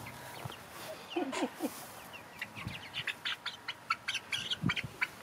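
Young Golden Comet chickens peeping in a galvanized stock-tank brooder as they are caught by hand: many short, high calls coming thick and fast in the second half, with a couple of low thumps.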